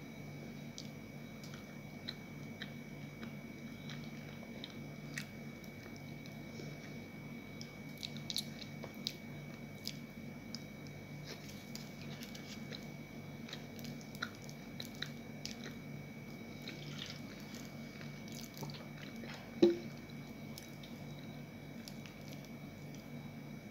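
Small sticky clicks and soft squishing of peanut-filled mochi being pulled apart and handled with the fingers, over a steady low hum. One louder knock comes late on.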